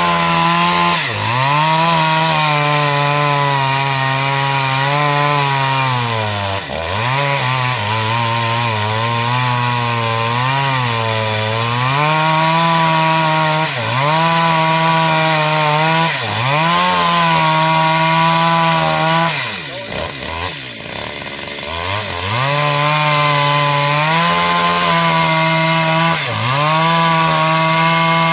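Stihl MS 250 two-stroke chainsaw running at high revs while cutting wood. Its pitch sags and recovers again and again as the chain loads up in the cut. About twenty seconds in it drops low and quieter for a moment, then revs back up.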